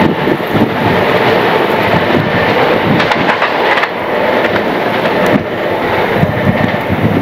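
A train running along the tracks, a loud steady rumble of wheels on rail.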